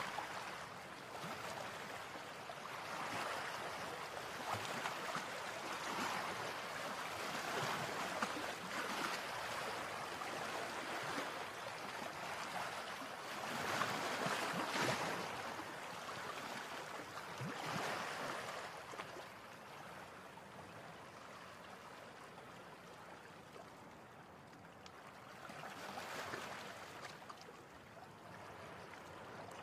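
Faint river water lapping and washing against a concrete embankment, swelling and fading several times.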